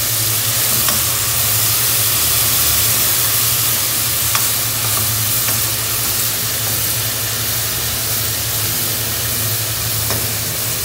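Chopped onions sizzling as they fry in hot oil in a non-stick pan while being stirred, a steady hiss with a few faint ticks of the stirring, over a low steady hum.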